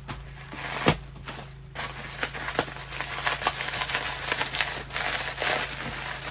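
A dull knife sawing through cardboard packaging: a continuous scratchy rasp with crinkling and small clicks, after a single sharp click about a second in. The blade is worn and barely cuts through.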